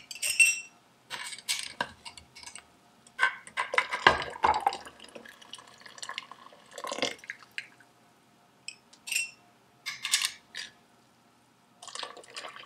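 Hot water splashing and pouring out of glass canning jars as they are lifted from a pot with tongs and emptied back into it, with clinks of glass against metal in between. Several separate pours and clinks with short pauses.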